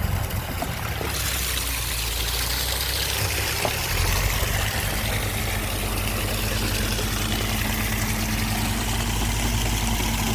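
Water gushing steadily from the opened outlet valves of a water tank into a dug water hole, getting fuller about a second in, over an engine idling steadily.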